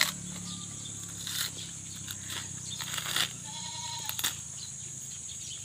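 Dry coconut husk being pulled and torn apart by hand: a few sharp tearing cracks about a second apart. A short bleat sounds a little after the middle.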